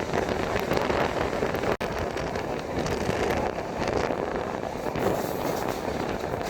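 Passenger train running, heard from on board: a steady rumble and rush of air that dips out briefly a little under two seconds in.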